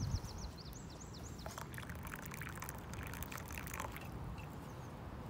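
Hot drink poured from a metal thermos into an enamel mug, trickling and gurgling. A small bird's rapid trill of high repeated notes sounds in the first second or so.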